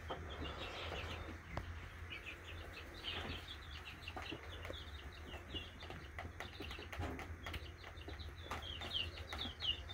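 Rat lapping and licking the liquid contents out of a cracked goose egg: a rapid run of small wet smacking sounds, several a second, over a steady low hum.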